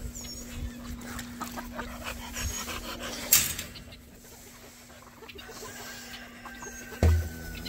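Dog panting among rattles and knocks against wire kennel panels, with a sharp loud clank about three seconds in and a heavy thump near the end.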